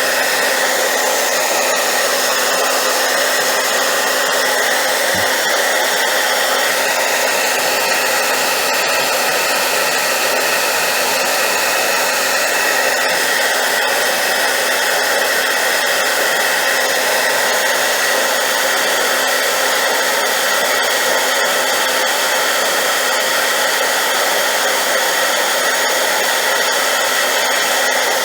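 Hair dryer running steadily on high power: a loud, unbroken rush of air noise with a constant hum through it, used as white noise.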